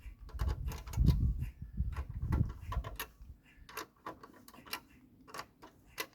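Irregular metal clicks and light knocks of a 7 mm socket and pliers tightening the nuts on a charger's brass terminal pins, with dull handling thumps in the first half.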